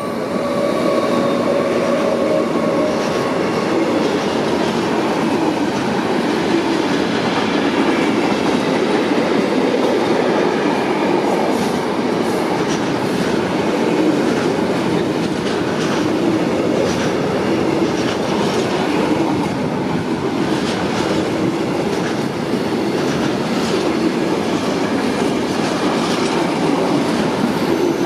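Intermodal freight train of pocket wagons carrying lorry trailers rolling past close by: a steady loud rumble of wheels on rail with repeated clickety-clack over the rail joints. A high tone fades out in the first few seconds.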